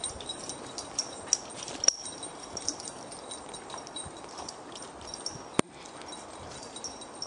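Footsteps on a woodland path, with scattered light high ticks and jingles throughout. There is a sharp click about five and a half seconds in.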